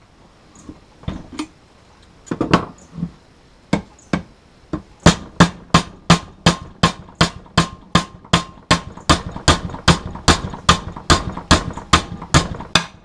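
Hammer blows driving a steel bolt through the tight-fitting new nylon bushings of an outboard's power trim and tilt unit mount. A few scattered strikes come first, then from about five seconds in a steady run of about three ringing metal blows a second.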